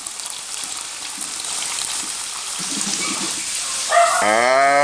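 Water running from an Electrolux water dispenser's tap into a plastic cup, a steady hiss of pouring that grows slightly louder. About four seconds in, a loud drawn-out voice cuts in over it.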